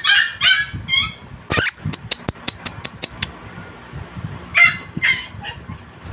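Puppy yipping in high-pitched barks: a quick string of them at the start and two more near the end. In between there is a knock and a run of quick, sharp taps.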